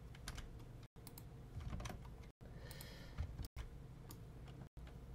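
Faint computer keyboard keystrokes, a few scattered clicks over a low steady hum. The recording cuts out for an instant several times.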